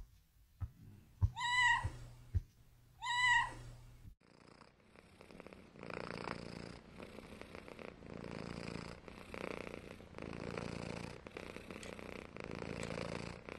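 Domestic cat meowing twice, two short rising-and-falling calls, with a few soft knocks around them. From about four seconds in the cat purrs steadily in even cycles of about a second, one for each breath in and out.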